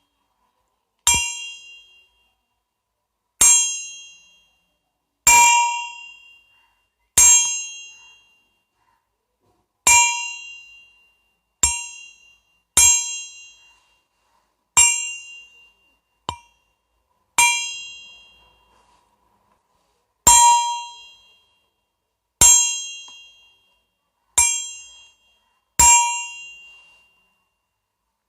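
A bell struck again and again at uneven intervals of one to three seconds, about fourteen strikes, each a bright, high ring that dies away within a second or two.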